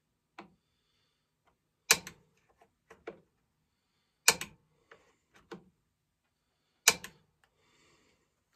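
Three sharp clicks about two and a half seconds apart, each followed by a few lighter ticks, from a replacement throttle trigger being fitted and worked in the rear handle of a Homelite Super XL-923 chainsaw.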